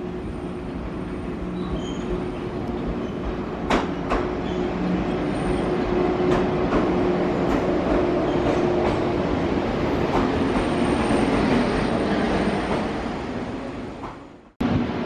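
Ex-JNR 413/455-series electric train pulling in along a station platform: a steady rolling rumble with a faint hum, occasional sharp clicks of wheels over rail joints, and a thin high brake squeal near the start and again later as it slows. The sound cuts off abruptly just before the end.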